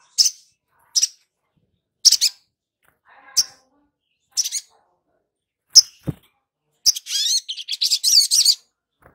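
Sogok ontong (sogon) bird giving short, sharp, high chirps about once a second, then breaking into a fast, dense twittering song near the end. A brief low thump comes about six seconds in.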